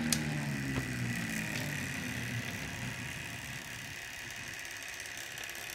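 A homemade 3D-printed electric motor-generator's rotor spinning down after running: its whirring hum slowly falls in pitch and fades over the first few seconds, with a faint steady high whine underneath.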